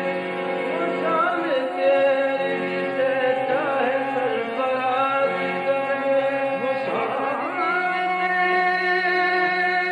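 Qawwali music: a harmonium holds steady chords that change every second or two while a singer's voice glides through long ornamented phrases above it.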